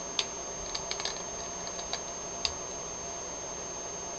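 Lego plastic pieces being handled, giving about six light clicks and taps in the first two and a half seconds, over a steady hiss with a thin high whine.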